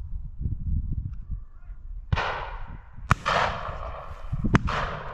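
Shotgun shots on a driven pheasant drive: a low rumble for the first two seconds, then about five reports. Some are long and die away slowly, others are sharp single cracks, with two close together near the end.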